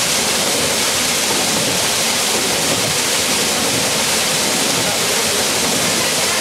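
Water gushing and splashing onto the horizontal paddle wheel (kvernkall) of a Norse watermill, turning its upright wooden shaft: a loud, steady rush of spray.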